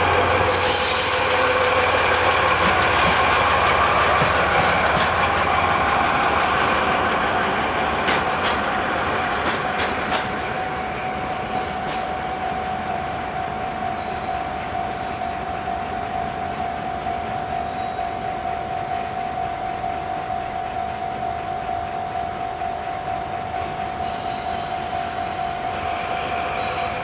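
Diesel locomotive DE65 2 running light past, its engine and wheels loud at first, with a few clicks of wheels over rail joints about eight to ten seconds in, then fading as it moves away. From about ten seconds in, a level crossing warning signal rings with a steady repeating tone.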